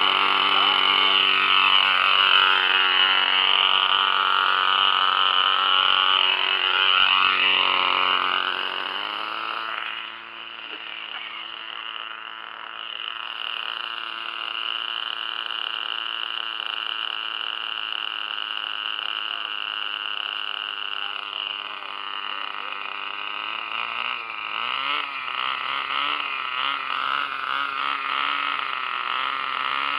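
O.S. .28 two-stroke glow engine of a 1980 GMP Cricket RC helicopter running. It is loud and steady at first, then drops in pitch and loudness about nine seconds in and holds a lower steady note. From about 24 seconds it speeds up unevenly, its pitch rising and wavering as the rotor starts to turn.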